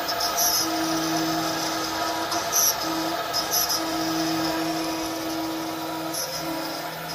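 Industrial machinery running: a steady hum that cuts in and out every second or so, with four short high hisses.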